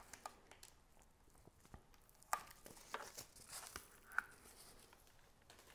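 Faint handling noises of a plastic vacuum brush-roll floor head being turned over and inspected: scattered light clicks and taps, with a handful of sharper clicks in the middle.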